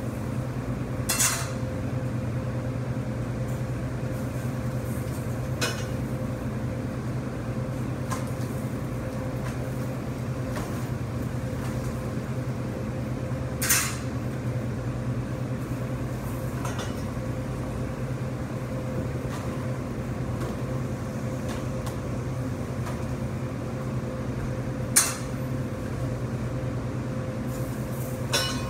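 Steady hum of commercial kitchen equipment at rotisserie ovens, broken by a handful of sharp metal clanks as the rotisserie spits of chickens are handled and pulled from the oven, the loudest about 14 s and 25 s in.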